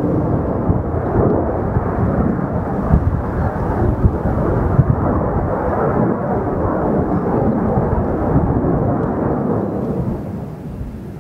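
Jet noise from a JF-17 Thunder fighter's single Klimov RD-93 turbofan during a display pass: a loud, rough, rumbling jet noise that drops off about ten seconds in as the fighter flies away.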